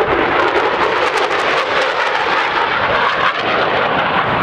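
Military fighter jet flying a display pass, its jet engines a loud, steady rush of noise.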